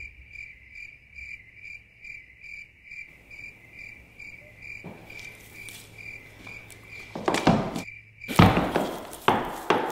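Cricket-chirp sound effect, a steady pulsing chirp a little over twice a second, used as the comic cue for an awkward silence; it cuts off suddenly near the end. Several loud thumps follow in the last two seconds.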